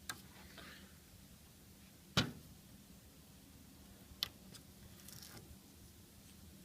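A sticker being picked at and peeled off a computer case: a few sharp clicks, the loudest about two seconds in, and short, faint, high-pitched crackles of the sticker tearing away.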